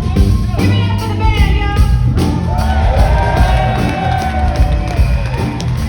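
Live blues-rock band playing loud through a venue's sound system, heavy bass and drums underneath, with long high notes that slide up and down over the top.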